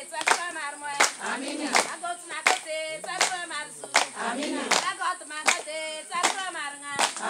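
People singing together, with hand clapping keeping a steady beat of about one clap every three quarters of a second.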